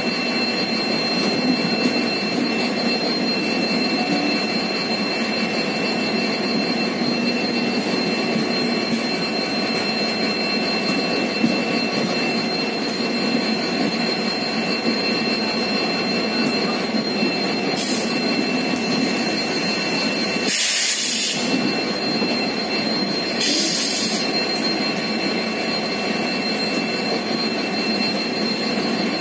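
LHB passenger coaches of a Humsafar Express running past at speed, a steady rumble of wheels on rail with a thin, steady high-pitched whine over it. Short bursts of hiss come three times in the last third.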